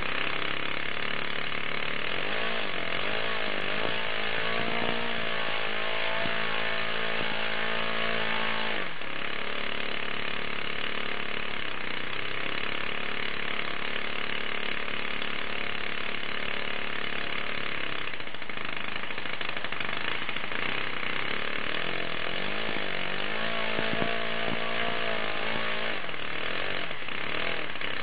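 Scratch-built Nemett 15S four-stroke model engine running steadily while being run in. Its speed wavers up and down for several seconds at a time, once about a quarter of the way in and again near the end.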